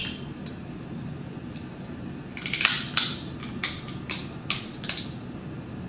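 Close-miked eating of snow crab legs: a quiet start, then a run of about seven sharp crackling snaps over roughly three seconds as the shell is cracked and the meat bitten out.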